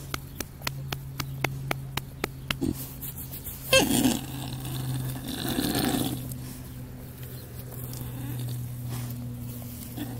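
Sleeping pig breathing in a slow snore, with a short grunt about four seconds in. A run of quick clicks, about four a second, fills the first two and a half seconds.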